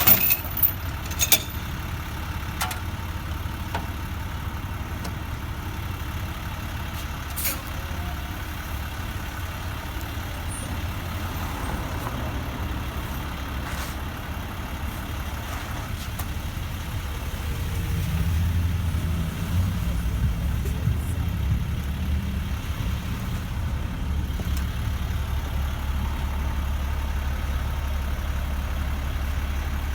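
Engine of heavy road-work equipment running steadily, with a few sharp clicks in the first few seconds; the engine grows louder about eighteen seconds in.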